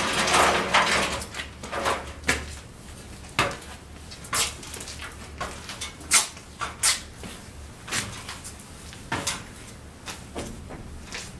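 Sharp knocks and clacks of wood and tools at irregular intervals, about one a second, from work on a timber house frame and roof trusses.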